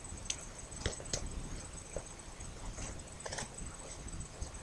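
Scattered light taps and rustles of a paper model pistol being handled and turned in the hands, over a faint steady high-pitched whine.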